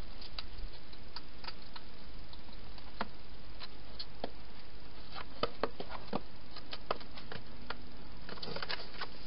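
Hedgehog feeding and shuffling inside a plastic feeding box: scattered sharp clicks and taps of eating and claws on plastic, bunched in the second half, over a steady hiss.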